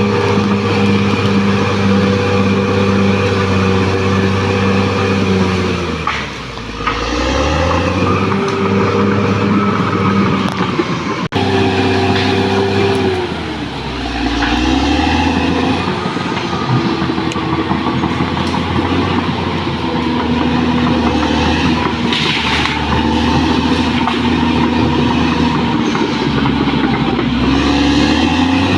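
Caterpillar D6R XL crawler bulldozer's diesel engine running hard with its steel tracks clattering. The engine speed drops sharply and recovers twice, at about six seconds and thirteen seconds, and dips again near the end. A single sharp click comes just past the middle.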